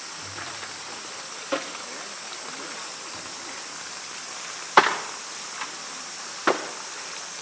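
Plastic buckets being handled and set down on a wet concrete floor: a few short sharp knocks, the loudest about five seconds in, over a steady high hiss.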